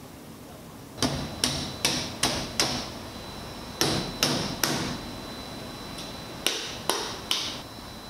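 Cleaver chopping roast pork: sharp, even chops, about two or three a second, in a run of five, then three, then three more, each with a short metallic ring.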